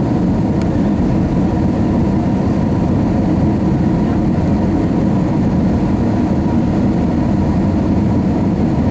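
Cabin noise of an Airbus A321 in flight, heard from inside the cabin: the steady low rush of airflow and the IAE V2500 engines, with a faint steady whine.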